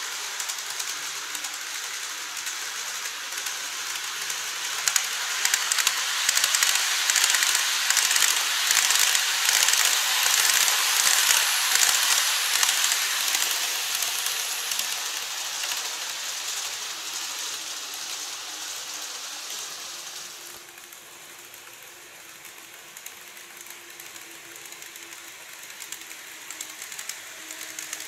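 Model electric train running on plastic track: a dense, fine clicking rattle of wheels on rails that swells as it comes near, then fades. After about twenty seconds the rattle drops suddenly to a quieter level with a faint steady hum.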